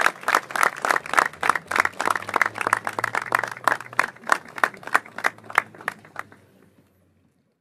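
A crowd clapping together in a steady rhythm, about four to five claps a second, with a low steady hum beneath. The clapping fades out near the end.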